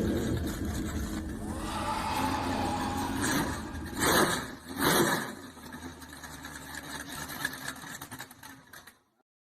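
A vehicle engine running, with two loud surges about a second apart near the middle, then the sound dies away and cuts out just before the end.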